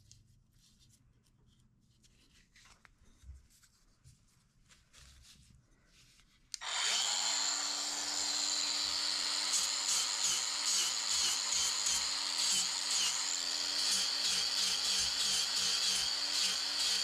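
Quiet handling sounds, then a power tool switches on abruptly about six and a half seconds in and runs steadily with a high whine, its pitch wavering slightly.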